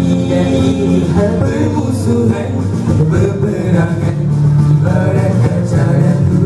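A group of boys singing a nasyid through microphones and a PA.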